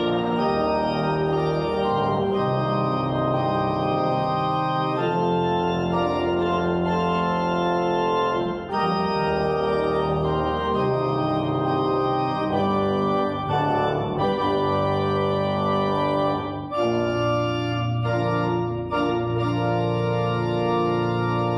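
Church organ played with full, sustained chords over a deep pedal bass in a fanfare, the chords changing about once a second, with short breaks between phrases about nine and seventeen seconds in.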